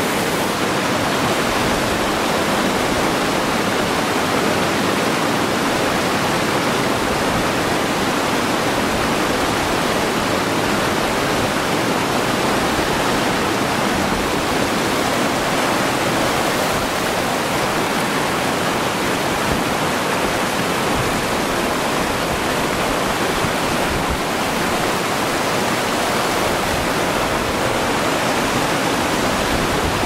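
Steady rush of a cascading mountain stream: an even, unbroken hiss of water.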